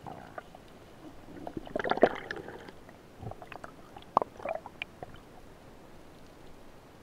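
Sharp clicks and knocks heard through water, loudest about two seconds in and again just after four seconds, with gurgling water as the camera comes up to the surface: a speargun and its steel spear shaft in use during a spearfishing dive.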